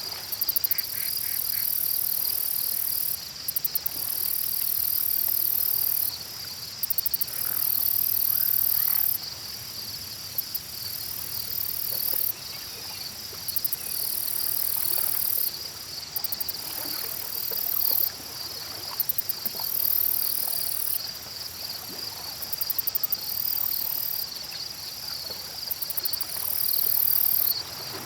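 Lake ambience dominated by insects trilling. A steady high trill runs throughout, while a second, much higher buzzing trill starts and stops in bouts of a few seconds, each bout opening with a quick stutter of pulses.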